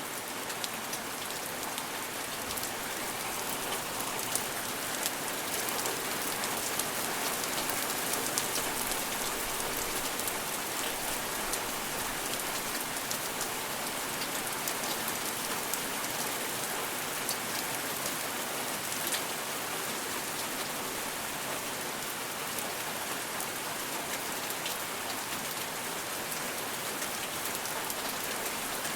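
Steady rain falling and pattering on surfaces, with scattered individual drops ticking through the hiss.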